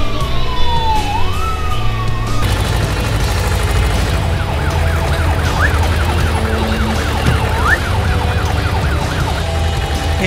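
Police car siren: a slow wail falling and rising in pitch, then switching to a rapid, regular yelp about four seconds in, which stops just before the end.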